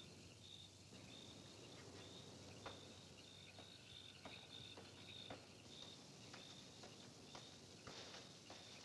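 Faint crickets chirping in short broken trills, with a few soft footsteps.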